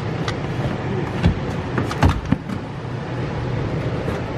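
A few sharp knocks and clunks over a steady low rumble, the loudest about two seconds in, as the rear seat of a BMW M3 is pulled loose in the cabin.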